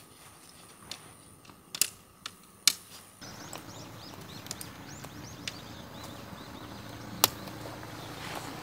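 Plastic tent clips snapping onto the dome tent's poles: a few separate sharp clicks, the loudest two in the first three seconds and another near the end. Birds chirp behind from about three seconds in.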